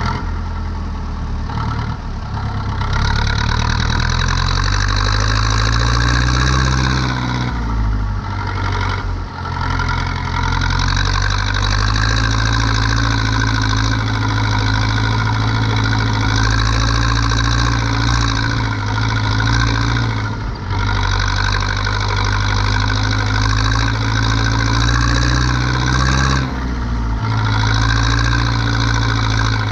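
Zetor 7245 tractor's four-cylinder diesel engine running steadily while the tractor works a hay tedder. Its note picks up about three seconds in and drops briefly a few times.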